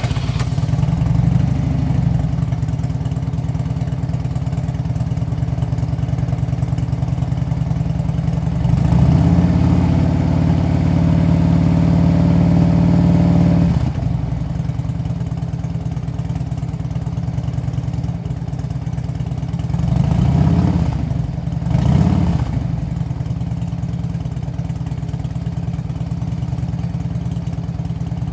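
Motorcycle engine idling steadily, then held at higher revs for about five seconds before dropping back to idle. Two short throttle blips follow about a second and a half apart, and it settles back to a steady idle.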